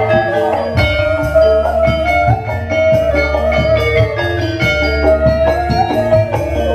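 Live band music: drum kit and bass keep a steady pulse under guitar, while a female sinden sings long held notes into a microphone, her pitch wavering and ornamented.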